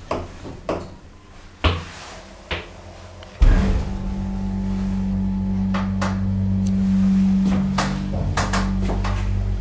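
Passenger lift doors closing with a few knocks and clicks. About three and a half seconds in the lift machinery starts with a thump and runs on as a steady low hum, with scattered clicks over it.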